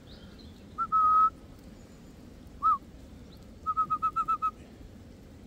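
A person whistling clear notes, all at about the same pitch: a short note and then a longer held one about a second in, a brief rising-and-falling note, then a quick run of about eight short notes near four seconds.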